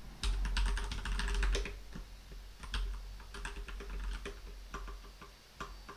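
Typing on a computer keyboard: a quick, dense run of keystrokes for the first second and a half, then slower, scattered key clicks.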